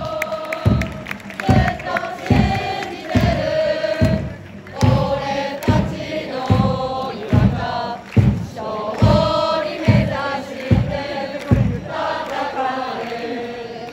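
Large crowd of football supporters singing a chant in unison, with a drum keeping a steady beat a little faster than once a second.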